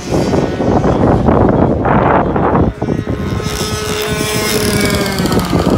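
Racing go-karts' 100cc two-stroke engines passing on the track, with wind buffeting the microphone in the first half. About three seconds in, one kart's engine comes through as a steady high buzz that drops in pitch near the end as it goes by.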